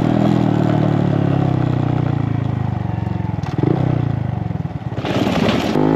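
Small single-cylinder motorbike engine running on a closing throttle, its note sinking slowly as the bike slows. About five seconds in comes a short rattling rumble as the wheels cross a cattle grid.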